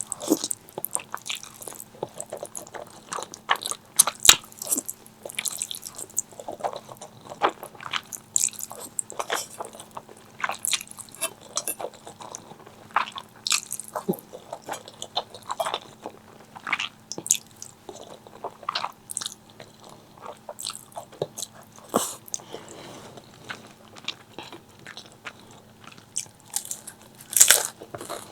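Close-miked eating: a person biting and chewing crispy fried chicken, an irregular run of crunches with a louder crunching burst near the end.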